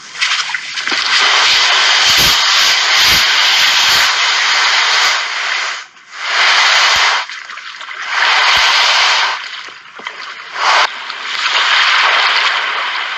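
A heavily loaded inflatable boat hull dragged across sand: a loud scraping hiss in pulls lasting one to five seconds, with short breaks between heaves.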